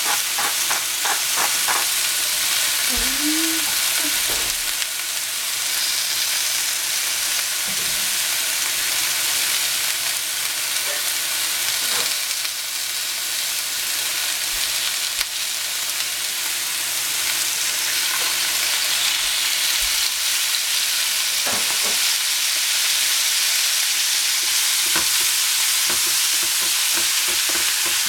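Swiss chard sizzling steadily as it fries in a nonstick pan. A pepper mill grinds in quick clicks over the pan in the first couple of seconds, and a spatula knocks and scrapes in the pan now and then, more often near the end.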